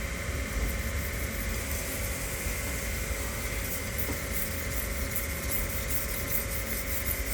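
Steady low hum of room noise, with faint repeated scraping of a kitchen knife's blade stroked over a wet whetstone in the second half.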